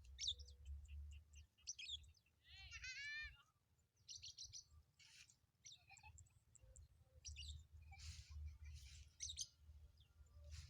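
Faint lovebird chirping: short, high chirps scattered throughout, with one longer, wavering call about three seconds in.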